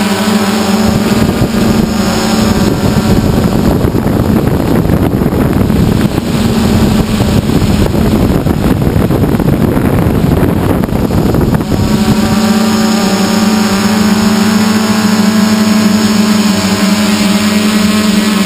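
Motors and propellers of a small camera-carrying drone, a steady pitched hum. From about a second in until about two-thirds of the way through, a rushing noise like wind on the microphone covers the hum, which then comes back steady.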